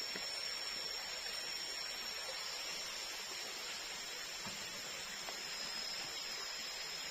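Steady hiss of tropical forest ambience with a thin, high, unbroken whine throughout, and a faint knock or two about halfway through as a bamboo tube is set down on the slatted bamboo floor.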